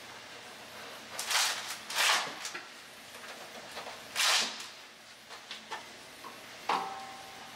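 Hands and tools working at a water heater's PEX fittings. There are three short scraping, swishing noises, then a few light ticks, and near the end a sharp metallic clink that rings briefly.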